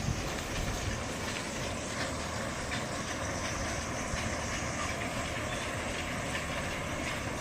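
Rice husking mill machinery running steadily, a constant low hum with an even mechanical hiss.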